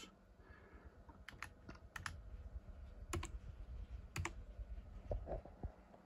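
Keys pressed on a computer keyboard: a handful of sharp clicks, single or in quick pairs, about a second apart, over a faint low hum.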